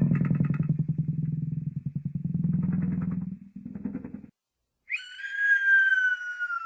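Cartoon sound effects: a low, rapidly pulsing motor-like rumble lasting about four seconds, then a whistle that slides slowly down in pitch, the classic cartoon falling whistle.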